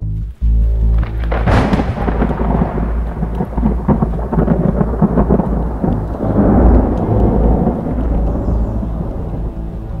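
Thunder: a sharp crack about a second and a half in, then a long, deep rolling rumble that slowly fades. Rather vicious thunder from an approaching thunderstorm.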